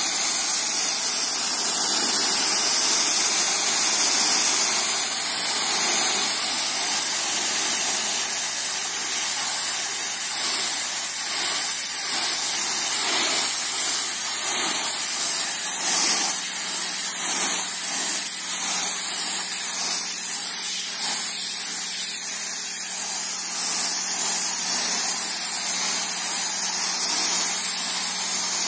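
Pressure-washer jet blasting a concrete floor: a loud, steady hiss of high-pressure water spraying onto the surface without a break.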